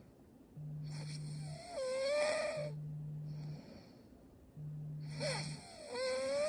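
A young woman snoring in her sleep: two long snores, each carrying a wavering voiced tone.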